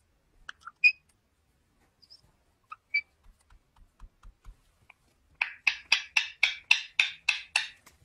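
Indian ringneck parakeet giving a few soft chirps and clicks, then, a little past halfway, a rapid run of about a dozen shrill calls, about five a second.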